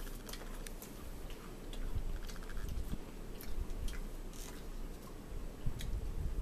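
Close-up eating sounds: crackers being chewed and crunched, with scattered small clicks and taps.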